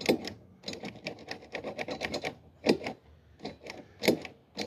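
Rapid, irregular metallic clicking and clinking of hand tools on the mower's engine parts, with a few sharper knocks among the clicks.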